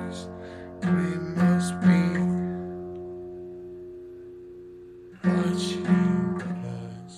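Acoustic guitar strumming chords: two strums about a second apart, left to ring and fade slowly for about three seconds, then two more strums near the end.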